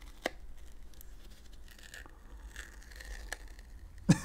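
Faint crinkling and peeling of a thin plastic film being pulled and flexed off a sticky adhesive pad, with one sharp click about a quarter second in. A louder voice starts right at the end.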